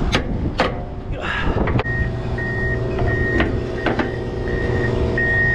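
A few sharp metal clicks and knocks as the steel hinge pin on an end dump trailer's swing tailgate is worked loose, over a steady idling truck engine. From about two seconds in, a vehicle's backup alarm beeps at a steady pace, roughly three beeps every two seconds.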